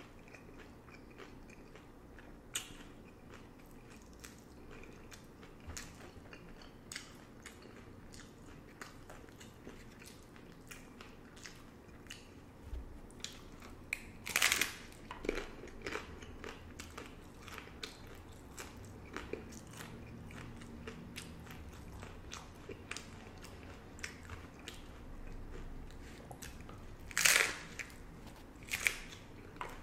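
Hard-shell beef tacos being bitten and chewed: two loud crunches of the shell, one about halfway through and one near the end, with steady chewing and small crackles between.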